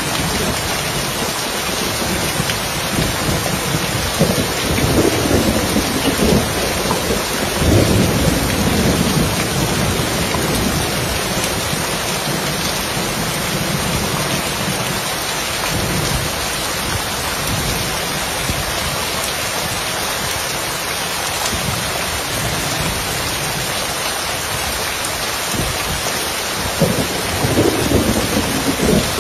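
Steady rain falling on a roof, a constant hiss, with rolls of thunder rumbling low under it: a long one a few seconds in and another near the end.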